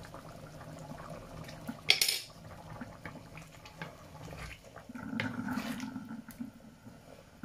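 Chicken curry in coconut milk simmering and bubbling in a frying pan. There is a sharp metal clatter of utensil on pan about two seconds in, then a wooden spatula stirring and scraping through the thick sauce.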